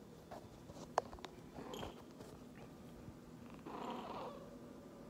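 Domestic tabby cat purring quietly while held in someone's arms, with two louder swells. A sharp click about a second in.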